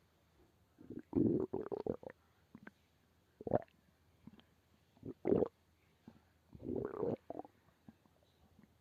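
Human stomach growling and gurgling in irregular bursts: a cluster of gurgles about a second in, short growls around three and a half and five seconds in, and a longer rumble near seven seconds.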